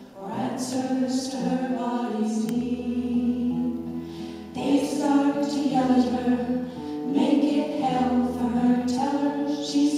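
Women's vocal group singing a song in close harmony, several sustained voice parts moving together, growing louder about halfway through.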